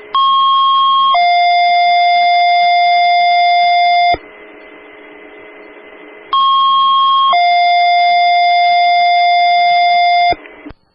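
Two-tone sequential paging tones on a fire dispatch radio channel: a higher tone for about a second, then a lower tone held for about three seconds, sent twice with radio hiss between. They alert fire stations to a dispatch announcement that follows.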